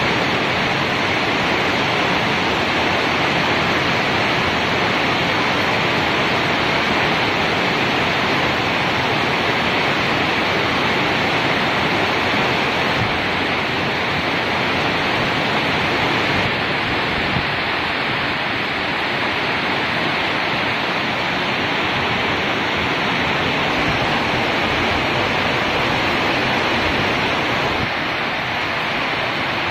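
Rain falling steadily, a loud, even hiss with no let-up.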